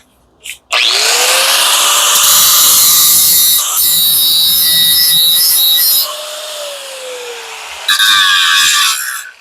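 Electric angle grinder spinning up about a second in and grinding into an aluminum part, with a brief break partway. Its motor winds down near the end, then a short second burst of grinding follows.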